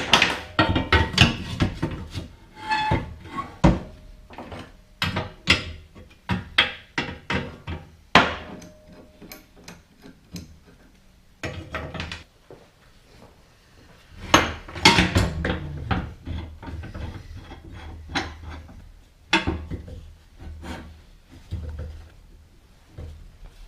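Hammer blows on a steel tension arm bracket of a car's front subframe, straightening out a bend. The strikes come irregularly, in bursts of quick blows with pauses between, some with a short metallic ring.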